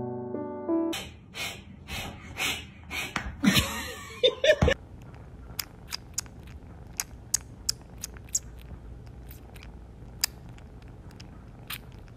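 A few seconds of scuffling, rustling noises, then a kitten licking close to the microphone: a long run of sharp little clicks, irregular, a couple a second.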